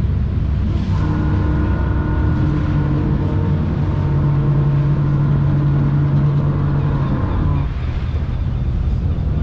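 A twin-V8 jet boat's engines running under way over a loud low rumble. About a second in a steady, higher engine note sets in and holds, then drops away near the end as the throttle eases.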